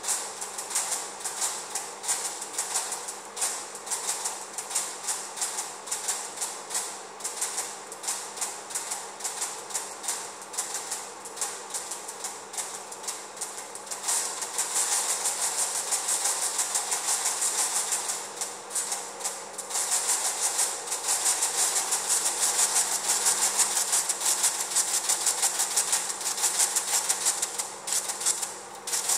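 Flip-dot display panels clicking as their electromagnets flip the discs, sequenced into a musical rhythm: a quick, regular pattern of sharp clicks, then from about halfway a dense rattling clatter of many dots flipping together, broken briefly once and stopping just before the end.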